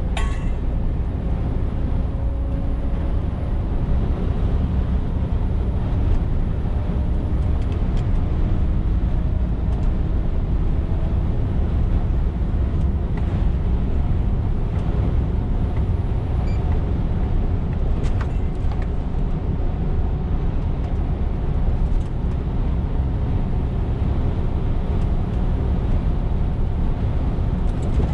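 Scania R410 truck's diesel engine and road noise while driving, hauling a loaded tanker: a steady low rumble with the engine pitch drifting slightly up and down.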